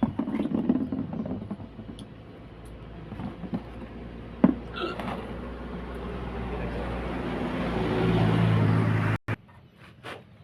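A motor vehicle engine running, growing steadily louder over several seconds before the sound cuts off abruptly near the end.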